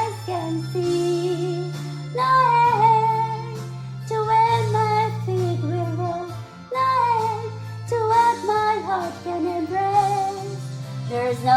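Karaoke backing music with a steady bass line under a lead melody that bends and holds its notes.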